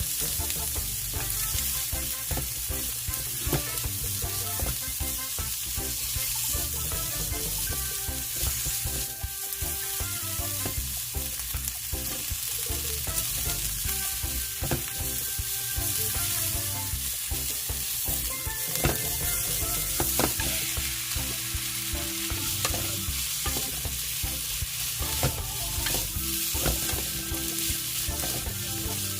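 Food sizzling and crackling in hot oil in a pan, a steady hiss dotted with small pops and an occasional sharper tick.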